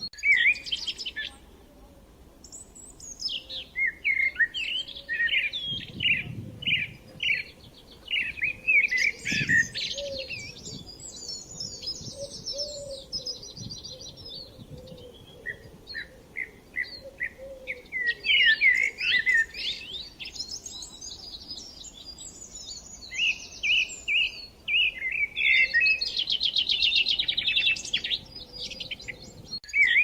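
Several songbirds singing at once: overlapping chirps, fast trills and runs of repeated notes, with a couple of brief low thuds partway through.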